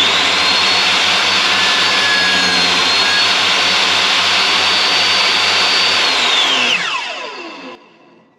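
Table saw with a 6mm grooving blade switched on: the motor runs up at once to a loud, steady whine, runs for about six seconds, then is switched off and winds down with a falling whine near the end.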